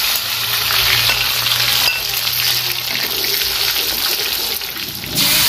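Food sizzling and crackling in hot oil in a wok, stirred with a metal spatula. Near the end the sound cuts abruptly to a louder, steadier hiss.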